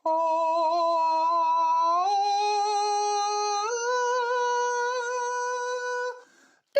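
A voice humming three long held notes, each a step higher than the last, with a slight waver in pitch.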